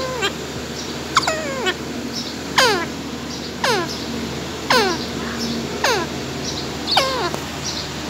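Pet green parakeet calling over and over, about once a second: each call a short screech that falls steeply in pitch.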